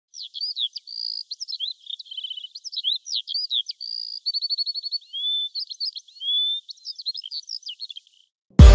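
A songbird singing a fast, varied song of chirps, rapid trills and slurred whistles, stopping about eight seconds in. Loud electronic music cuts in right at the end.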